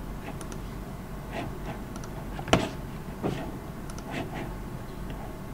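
A few light computer mouse clicks and small knocks over a steady room hum, with one sharper knock about halfway through.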